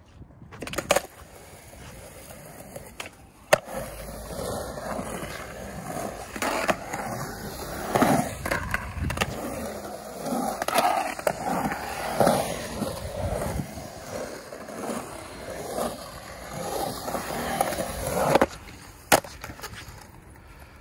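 Skateboard wheels rolling and carving on a concrete bowl, the rolling swelling and fading as the board moves through the transitions. Sharp clacks of the board strike about a second in, again a few seconds later, and twice near the end.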